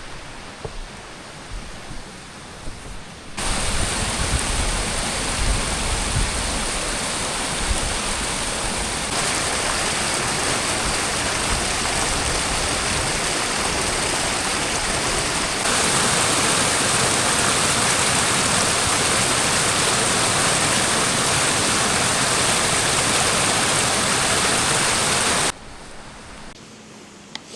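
Strong storm wind rushing through forest trees, a steady loud roar with some low buffeting rumble. It starts abruptly a few seconds in, gets louder in two steps and cuts off abruptly near the end.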